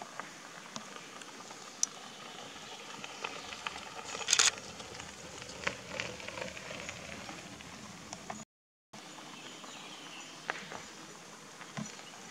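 Mountain bikes rolling over a gravel road toward the microphone: tyres crunching on loose gravel with scattered clicks and small knocks. There is a brief louder crackle about four seconds in. The sound cuts out for a moment a little past eight seconds.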